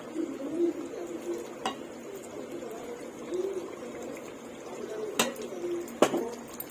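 A spoon knocking a few times against a cooking pot during stirring, the loudest knock near the end, over soft, low, wavering cooing of pigeons.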